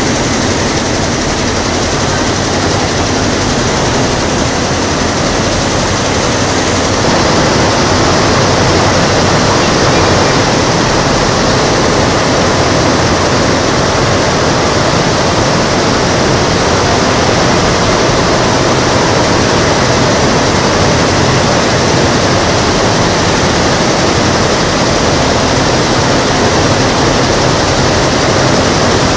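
Many multi-head computerised embroidery machines running together on a factory floor make a loud, steady, dense mechanical clatter. It grows slightly louder about seven seconds in.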